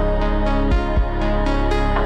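Ambient space music: a steady run of plucked notes, about four a second, over sustained held tones, with two deep low thumps close together about a second in.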